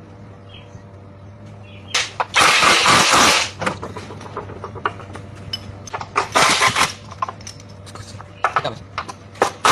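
Workshop noise during suspension work: a steady low hum, two loud bursts of hissing noise lasting about a second and a half and about a second, and scattered sharp clicks and knocks of tools on metal.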